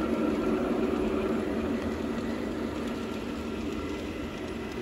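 Outdoor garden-scale model trains running on their track: a steady rumbling hum of wheels and motors that slowly fades.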